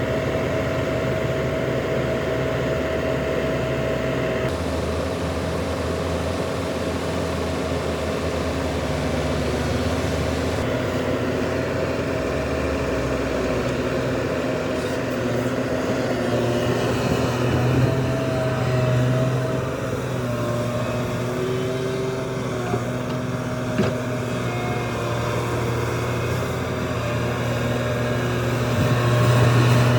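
Heavy earthmoving machinery at work: large diesel engines running steadily, growing louder under load about two-thirds of the way through and again near the end.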